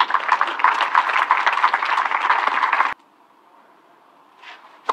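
Crowd applauding at a tennis match after a game ends, cut off abruptly about three seconds in. Then near quiet until a single sharp hit at the very end, a tennis serve being struck.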